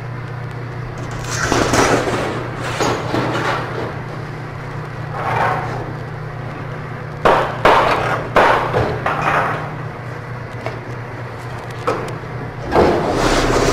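Sheet metal clattering and banging in irregular bursts as it is handled and bent on a manual sheet-metal brake, with the loudest clanks in the middle stretch and another near the end. A steady low machine hum runs underneath.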